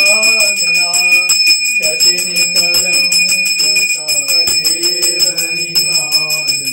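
Brass puja hand bell rung rapidly and continuously during the aarti, its bright ring held steady throughout. A wavering melodic voice or tune runs beneath it.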